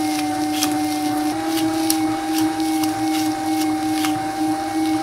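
Electric meat grinder running with a steady motor hum while its auger crushes dry yellow snack sticks into powder. Irregular sharp crackles come a few times a second.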